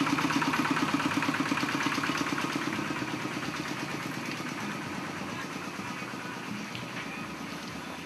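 A motor vehicle's engine running with a rapid, even pulse, gradually getting quieter.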